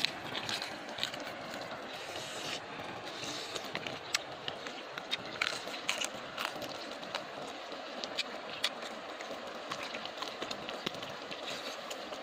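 Close-up chewing and crunching of grilled pig ear, its cartilage giving irregular sharp clicks and crackles over a steady outdoor hiss.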